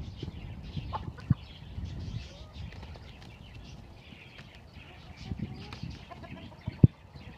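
Young roosters fighting, wings flapping and scuffling, with hens clucking now and then. A few sharp thumps stand out, one at the start, one just over a second in and one near the end.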